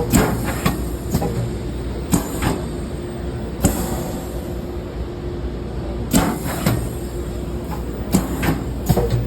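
Power cylinder cycling on a demonstration rig, each stroke ending in a sharp clack. The clacks come mostly in pairs a fraction of a second apart and repeat every few seconds, over a steady hum.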